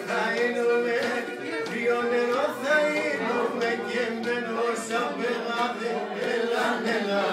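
Men singing together with music, the voices holding long notes over a steady held pitch.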